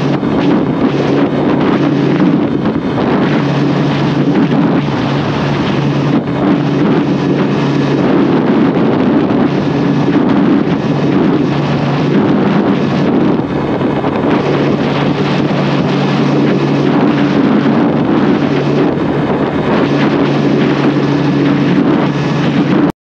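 Bajaj Pulsar N150's 150cc air-cooled single-cylinder engine running flat out at a steady pitch near 9,000 rpm in fifth gear, at its top speed of about 116 km/h. Heavy wind blast rushes over the microphone.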